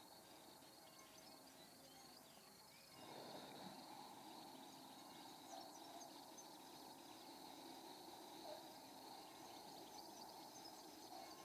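Near silence: faint background room tone, a little louder from about three seconds in.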